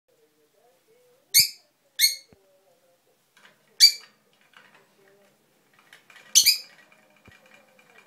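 A small pet parrot giving four short, shrill calls, two close together early and two more spaced apart, with quieter chattering in between.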